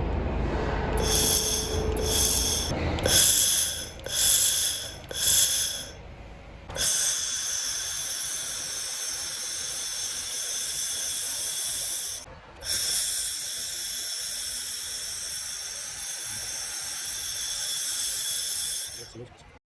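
1500 W handheld fiber laser welder at work on stainless steel: a hissing sizzle with a steady high whine, first as about five short bursts like tack welds, then as a long continuous weld that stops briefly about twelve seconds in and starts again until near the end.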